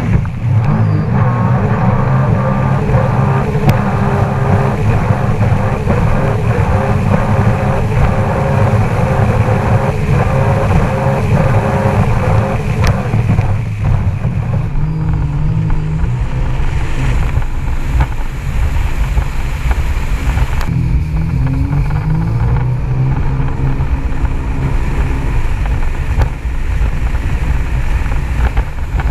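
Sea-Doo RXT-X 300 RS jet ski's supercharged three-cylinder Rotax engine running at speed on the water, with water rushing past and wind on the microphone. The engine note drops about halfway through and climbs again later as the throttle changes.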